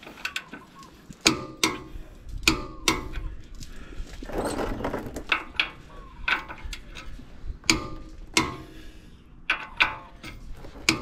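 Half-inch torque wrench ratcheting as the lower ball joint nut is tightened to 103 ft-lbs: sharp clicks and short ratchet strokes at irregular intervals, with a longer stretch of ratcheting about four seconds in.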